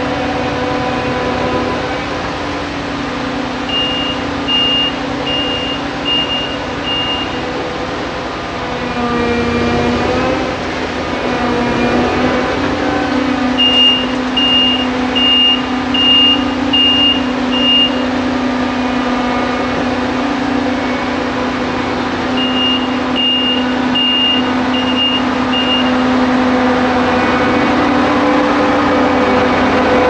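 Claas Lexion 770 combine's diesel engine running steadily as the machine moves slowly past, its pitch dipping and rising again around ten seconds in. A reversing alarm beeps in three runs of about six beeps each.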